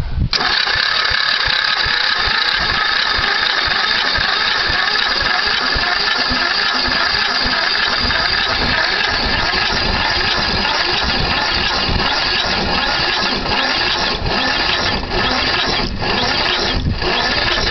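Electric starter cranking the cold 11 hp Yard Boss riding-mower engine in one long, steady whir with a fast regular chug of compression strokes. The engine turns over but does not catch.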